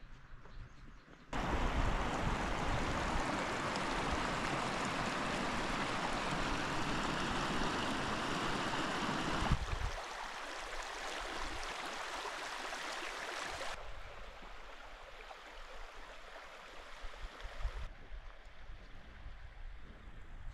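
Rushing water, a steady even roar that starts abruptly about a second in. It then drops in level in sudden steps three times.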